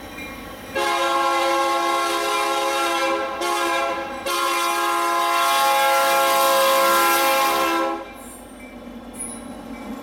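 Diesel freight locomotive's multi-chime air horn sounding for a grade crossing: a long blast, a short one, and a final long one that cuts off about eight seconds in. After that the passing train rumbles.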